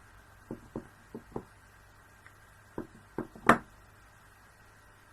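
Light taps of a rubber stamp on an ink pad, a few in quick succession, then a louder knock about three and a half seconds in as the stamp is pressed down onto scrap paper.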